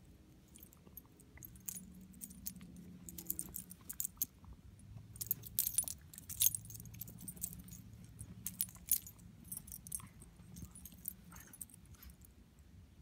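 Siberian husky nosing and digging through snow for a snowball: a run of crisp, irregular crunching clicks, thickest about halfway through.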